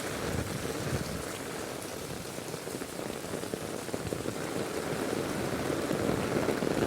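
Heavy rain falling steadily, a dense patter of drops hitting the ground, growing slightly louder toward the end.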